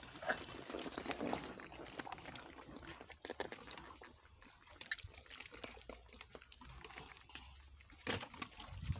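Live catfish slithering and slapping against each other in a plastic basin with a little water, giving an irregular run of short wet sloshing and slapping sounds. They are busiest in the first two seconds, with a louder burst near the end.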